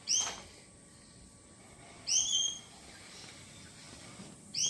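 A bird calling: short, high curved notes repeated about every two seconds, three times, over faint background hiss.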